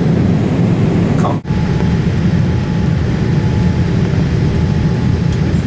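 Steady rushing cabin noise of a Boeing 787-8 airliner in flight, from its jet engines and the airflow over the fuselage, heaviest in the low range. The noise drops out for a split second about a second and a half in, and then a faint steady hum continues underneath.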